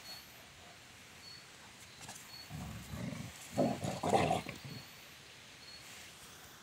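Cane corso and presa canario growling as they play-fight: a low growl starting about two seconds in, then louder, rougher growling for about a second before it dies away.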